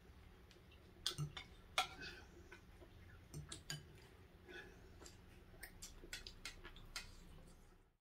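Faint, irregular clicks and small taps of someone eating a takeout chicken meal, handling the food containers and utensils, a couple of sharper clicks about one and two seconds in.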